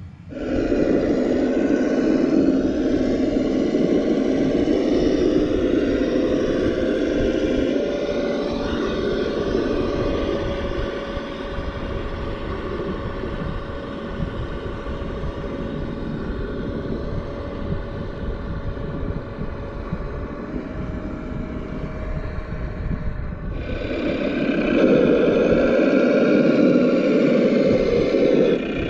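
Simulated truck engine sound from a Sense Innovations ESS Dual Plus sound unit, played through the onboard speakers of a Traxxas TRX4 RC crawler as it drives. The engine note is steady with its pitch drifting slightly. It starts abruptly and gets louder again from about 24 s in.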